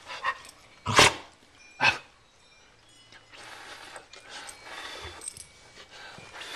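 Golden retriever giving two short, loud barks about a second apart, then only quieter sounds.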